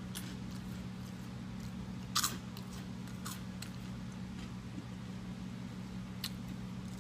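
A person biting into and chewing Cheddar Jalapeño Crunchy Cheetos: a few crisp crunches, the loudest about two seconds in, over a steady low hum.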